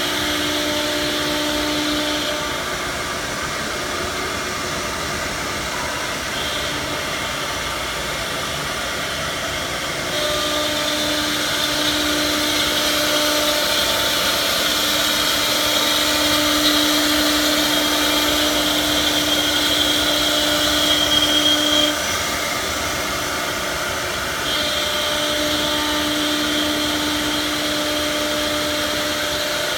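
Multi-spindle CNC router running, its spindle motors giving a steady whine over the noise of cutting wood. The sound steps up about ten seconds in and drops back abruptly about twenty-two seconds in, as the cutting load changes.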